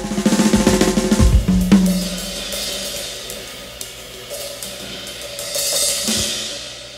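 Recorded drum kit solo played back over a hi-fi system: rapid drum strikes building to a loud final hit about two seconds in, then cymbals ringing, swelling again near the end and fading out.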